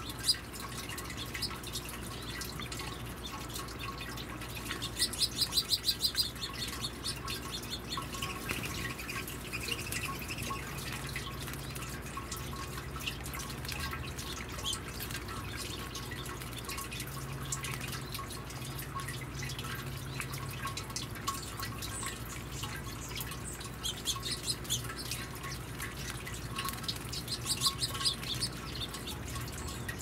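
Water from a garden bird-bath fountain trickling steadily, with birds chirping in two short rapid runs of high notes, about five seconds in and again near the end.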